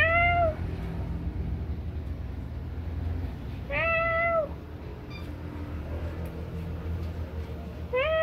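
Domestic cat meowing: two meows about four seconds apart, each rising then falling in pitch, and a third beginning near the end, over a steady low hum.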